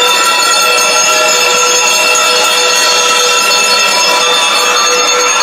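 Drum and lyre band playing, its bell lyres ringing with many metallic notes held and overlapping.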